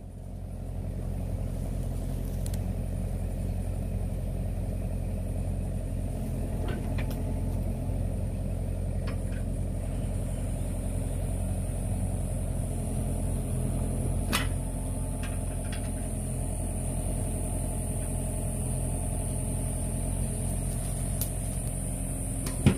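Excavator's diesel engine running steadily, coming up about a second in, with a thin high whine over it. A sharp knock near the end.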